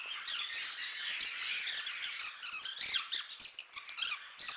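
A dense run of short high-pitched squeaks and chirps mixed with scattered sharp clicks, with almost no low sound underneath.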